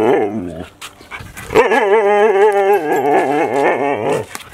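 Siberian husky "talking back": a short wavering howl-grumble, then after a brief pause a long "woo-oo-orl" yodel whose pitch wobbles rapidly up and down. This is a husky's protesting back-talk, demanding to be let out for its walk first.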